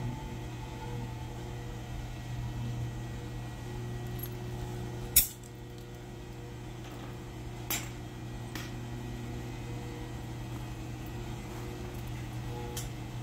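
Steady low hum of a wood lathe turning a large maple disc slowly, with one sharp click about five seconds in and a few fainter ticks later.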